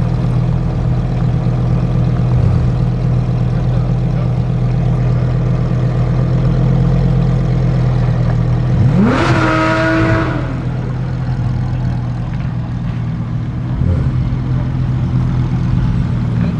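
A steady low engine drone runs throughout. About nine seconds in, a supercar's engine sweeps loudly past, its pitch climbing and then dropping away as it goes by within about a second and a half.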